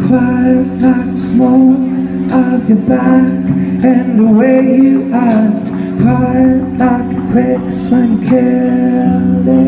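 Live band music: a man singing into a microphone over held keyboard chords.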